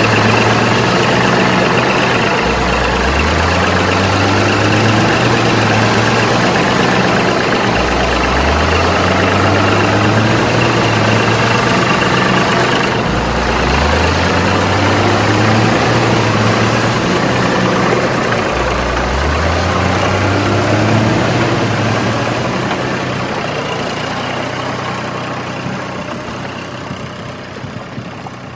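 Heavy tractor engine running, its low note climbing in steps and dropping back about every five and a half seconds; it fades out near the end.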